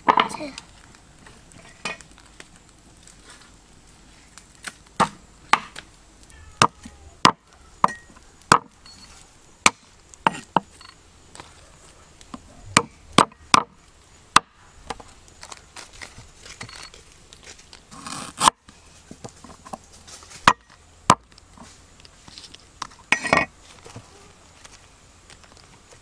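Knife strikes on a round wooden cutting board as garlic, lemongrass and other soup aromatics are chopped: single sharp knocks at irregular intervals, sometimes two or three close together.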